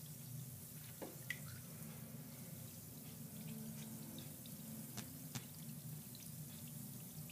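Wild rose bath bomb fizzing faintly as it dissolves in bathwater, with a few small drip-like clicks.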